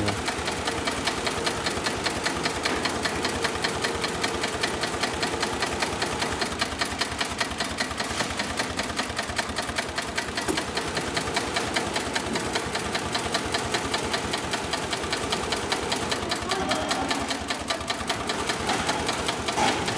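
Heavy-duty long-arm zigzag sail-making sewing machine (9366HM) sewing steadily, its needle strokes in a fast, even rhythm.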